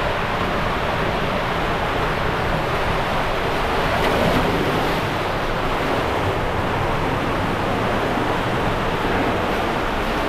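Steady rush of water and sliding noise as a rider goes down an enclosed water-slide tube and into the water-filled run-out lane. The sound swells briefly about four seconds in.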